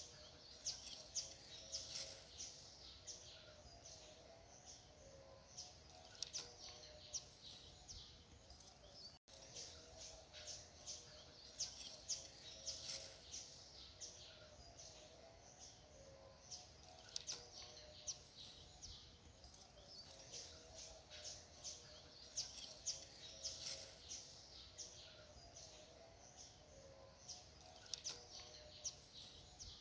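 Small birds chirping: many short, high calls repeating on and off over a faint, steady background hum, with a momentary dropout about a third of the way in.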